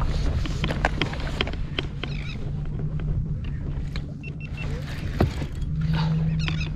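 Conventional fishing reel cranked by hand, its gears making a steady whir with scattered clicks as a fish is reeled up from depth.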